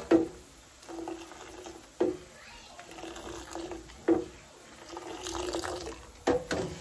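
Hot tea being worked with a ladle in a metal pot and poured back, about every two seconds. Each stroke starts with a sharp clink and the pot rings briefly under the splash of liquid.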